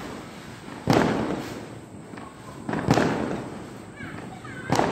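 Firecrackers going off, three loud bangs about two seconds apart, each followed by an echo that dies away over about a second.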